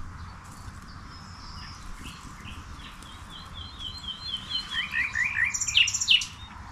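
A songbird singing: a run of quick repeated chirps, then a few falling notes, ending with louder, sharper notes near the end.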